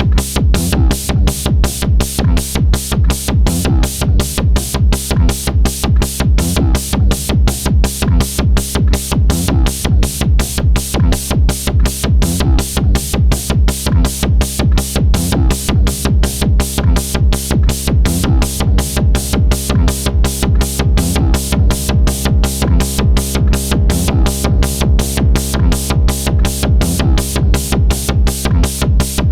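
Electronic bass drum and hi-hat beat: a steady, fast, even pulse of kicks and hats over a sustained synth bass tone.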